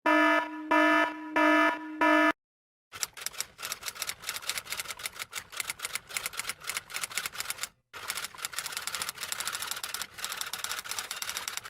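Four short electronic beeps, then a long run of rapid typing key clicks, many per second, broken once by a short pause.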